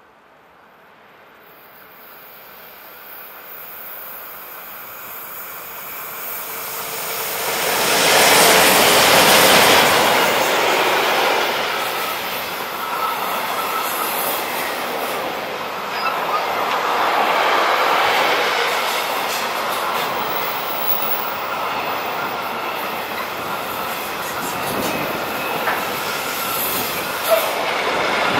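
Electric freight train hauled by a pair of red SBB locomotives approaching and passing. The noise builds to its loudest about eight to ten seconds in as the locomotives go by, then settles into a steady rolling of wagon wheels on the rails, with thin squealing tones and a few sharp clicks near the end.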